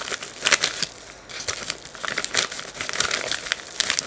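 A mailing envelope being cut open with small scissors and pulled apart by hand: an irregular run of crinkling and rustling, with a brief lull about a second in.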